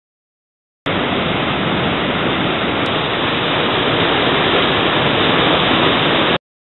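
Steady, loud rushing of water, starting abruptly about a second in and cutting off suddenly just before the end.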